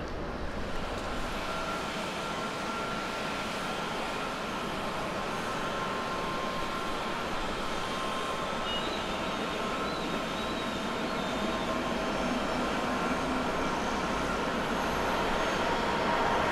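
Airliner jet engines heard from a distance: a steady rush with faint steady whining tones, growing a little louder near the end. The sound runs from a Boeing 767 climbing out into a Boeing 777-200ER moving along the runway for takeoff.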